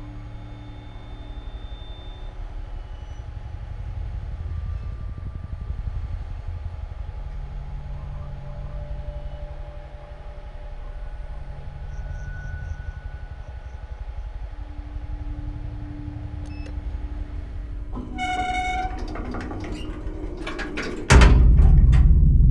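Horror-film sound design over a lift ride: a steady low rumbling drone with faint, scattered eerie tones. About eighteen seconds in, a pulsing pitched tone sounds, followed by sharp hits and then a sudden loud low boom near the end.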